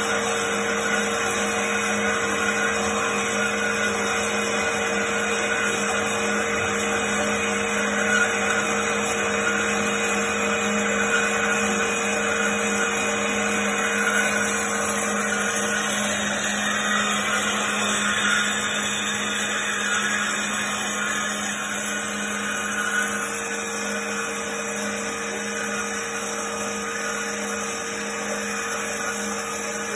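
Trennjaeger Teba 310 metal-cutting band saw running with a steady hum and whine. About halfway through, the higher of its tones drops out and the sound shifts, then it runs on a little quieter.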